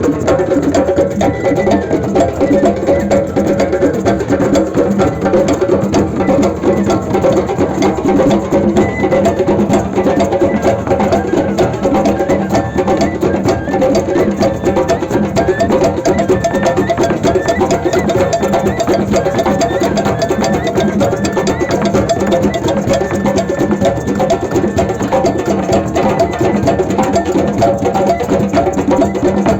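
Music with percussion: a steady, fast beat of wood-block-like strikes over held tones.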